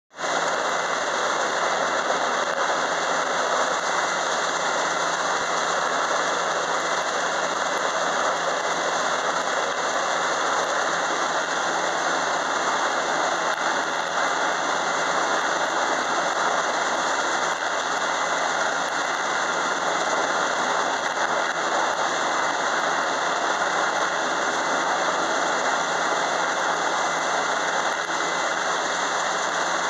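Sikorsky S-92 helicopter running on the deck with its rotors turning: a steady mix of turbine engine whine and rotor noise.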